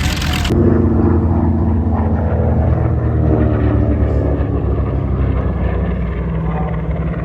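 Propeller aircraft's piston engines running, a loud steady drone with a low pulsing beat, as at an air show pass or taxi.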